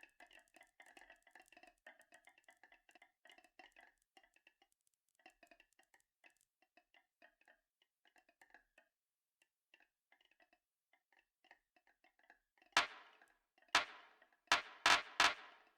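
Marbles rolling and clicking along a marble run track in a rapid patter that thins out and fades, followed near the end by several loud, sharp clacks of marbles hitting or dropping onto the track.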